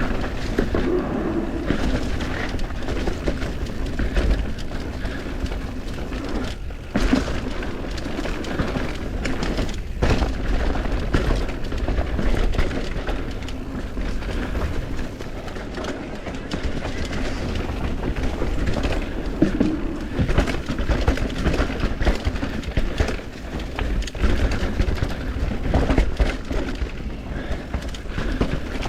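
Mountain bike riding down a dirt trail: a steady low rumble of wind and tyre noise, with frequent knocks and rattles from the bike over rough ground.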